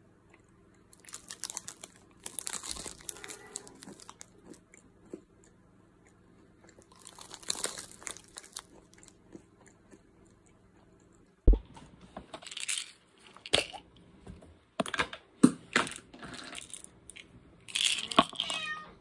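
A plastic snack bag crinkling and crunchy snack food being chewed, then a run of sharp knocks and clatters from close handling in the last third.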